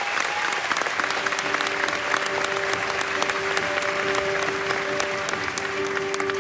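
Audience applauding, a dense patter of many hands clapping. About a second in, music comes in beneath the clapping, holding long, steady notes.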